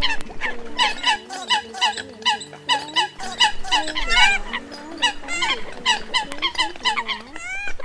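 A flock of Eurasian coots calling: a dense, continuous chorus of short, sharp, nasal calls, several a second and overlapping one another.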